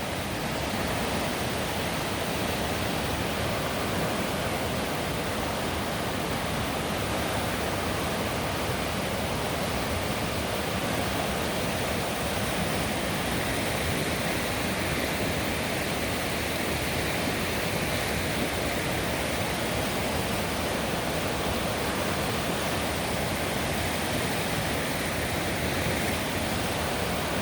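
Floodwater rushing in a steady, unbroken roar of moving water.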